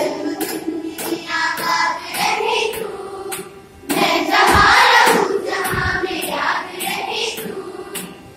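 A group of girls singing a song together, with short sharp clicks along the way. The singing gets louder about four seconds in.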